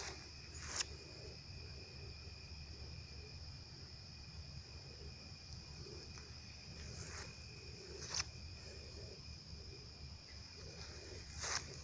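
Steady high-pitched chirring like a night insect chorus, over a low rumble, with a few brief scuffs or clicks about a second in, around seven and eight seconds in, and near the end.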